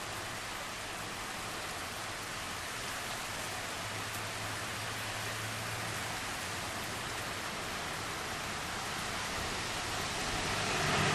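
Typhoon rain falling steadily as an even hiss, growing louder near the end.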